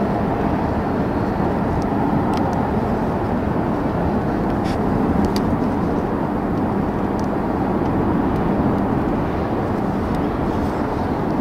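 Mercedes-AMG GLB 35 driving at a steady pace, heard from inside the cabin: an even hum from its 2.0-litre four-cylinder engine blended with tyre and road noise, with a few faint ticks.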